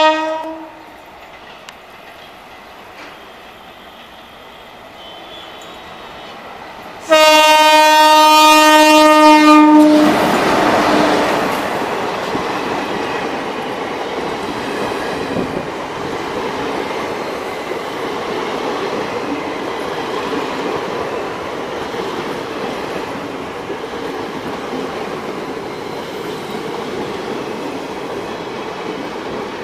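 Horn of a WAM-4 electric locomotive: a short blast at the very start, then a long loud blast about seven seconds in that lasts about three seconds. The express's coaches then roll steadily past.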